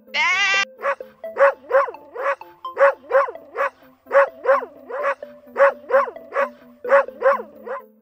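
A sheep's bleat for the first half second, then a Doberman barking over and over, about three short barks a second, over background music.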